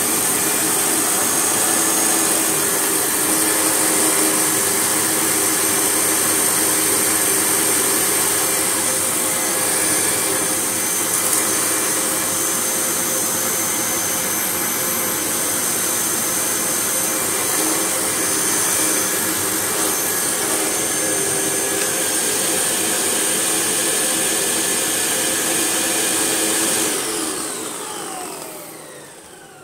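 1998 Sebo Automatic X1 upright vacuum cleaner running steadily with its hood off, a motor hum and whine over airflow noise. Near the end it is switched off and the motor winds down, its pitch falling.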